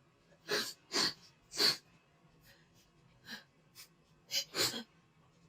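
A person sneezing in a rapid series of short sneezes set off by a nasal swab. There are three loud ones in quick succession, then a couple of fainter ones, then two more close together near the end.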